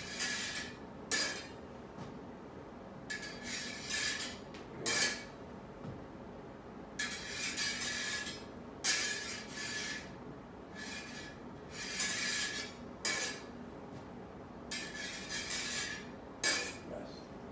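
Steel smallsword blades scraping and clinking against each other, about nine short contacts with pauses between: the master engaging the student's blade and the student thrusting along it.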